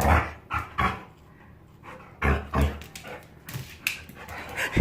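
Jindo puppy making short, pig-like grunting sounds, several in a row: the noise it makes only when it is happy and excited.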